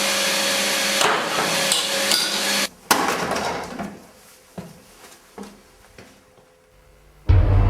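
Vacuum cleaner running with a steady whine, then cutting off suddenly about two and a half seconds in. A single sharp bang follows, then a few faint knocks.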